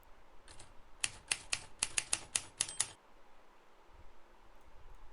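Typewriter key-strike sound effect playing back: a quick run of about a dozen sharp key clacks, starting about half a second in and stopping about three seconds in.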